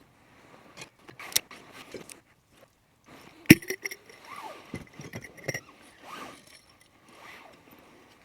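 Scattered scrapes, clicks and knocks from handling fire-starting materials and kindling for a campfire, with one loud sharp click about three and a half seconds in, followed by a brief ringing.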